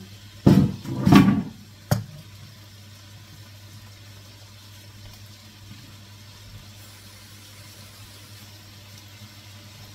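A few loud clattering knocks from a wooden spoon and bamboo chopping board being handled, in the first two seconds, the last one short and sharp; after that only a steady low hum.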